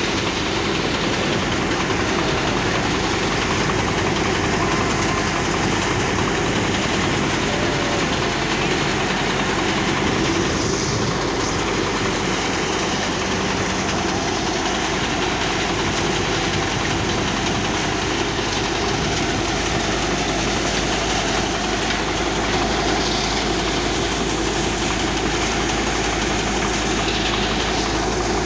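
Soybean thresher running steadily as dried soybean plants are fed into it: a continuous, even mechanical din of the threshing drum and blower.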